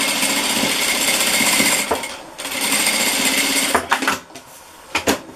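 Electric sewing machine stitching a seam through cotton fabric, running in two stretches with a short pause about two seconds in, then stopping with a few short clicks near the end.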